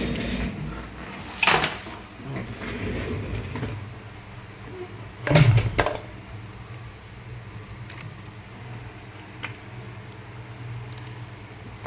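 Hand tools and small hard objects being picked up and set down on a workbench: short clatters and knocks, the loudest two about a second and a half and five seconds in, with light ticks after, over a low steady hum.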